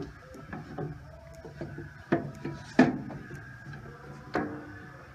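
Metal clunks and knocks from the feed handle and quill of a Rockwell Delta drill press head being worked by hand. There are four knocks, the loudest about three seconds in, and the last rings briefly.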